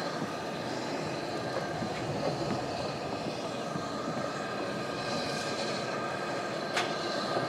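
Class B1 4-6-0 steam locomotive and its carriages rolling slowly into a station: a steady rumble with faint high squealing tones, and a single sharp click near the end.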